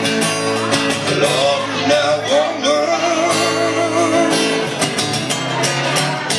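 A blues band playing, led by guitar.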